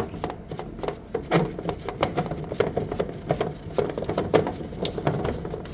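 Irregular clicks, knocks and rubbing as parts of the reprocessor's filter assembly are handled and put back into place.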